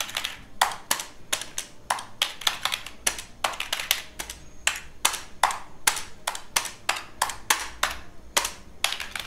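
Keys of a Logitech MK275 wireless keyboard being pressed one after another, a run of short plastic clicks, a few a second at an uneven pace. The keys sound firm and well built.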